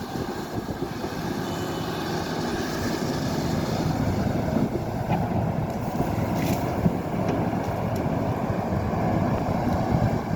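Excavator's diesel engine running steadily, a continuous rumble, with a brief click about six and a half seconds in.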